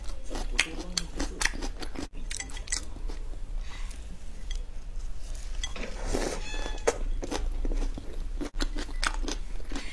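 Close-up biting and chewing of crunchy lotus root slices: a string of crisp crunches with wet chewing between them.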